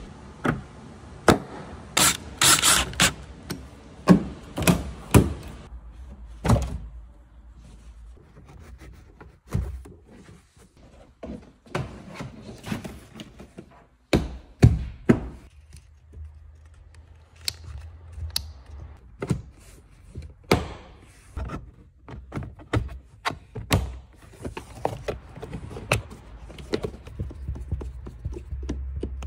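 Plastic interior trim panels being pressed and fastened onto a Volkswagen Caddy's body: a string of irregular clicks and knocks as clips snap into place, several bunched together a couple of seconds in.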